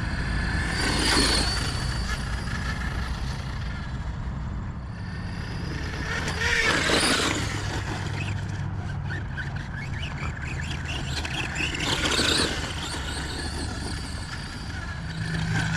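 Brushed electric motor of a Tamiya Blitzer Beetle RC car whining as the car runs over loose dirt, with its tyres scrabbling for grip. The sound swells louder three times, about a second in, near the middle, and again later, as the car speeds up.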